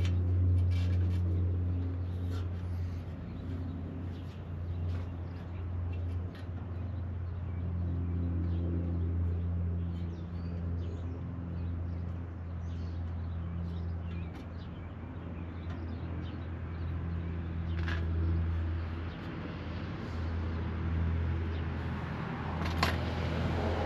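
Steady low hum with scattered light clicks and knocks of an A/C condenser and its mounting bracket being handled and slid into place, a few sharper knocks near the end.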